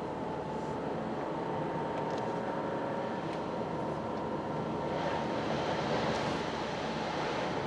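Toyota GR Yaris driving at road speed on studless winter tyres: a steady mix of engine and tyre noise from its 1.6-litre turbo three-cylinder, with a faint steady whine. A hiss swells about five seconds in and eases near the end, like tyres over a wet, slushy patch.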